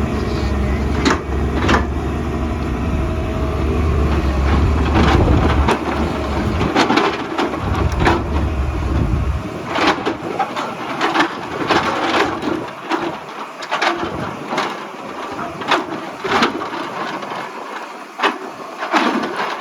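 Excavator at work on rock and soil: the diesel engine's low running sound for about the first half, with repeated sharp knocks and clatter of rock and bucket. The engine sound drops away about halfway through, leaving the knocks and scraping.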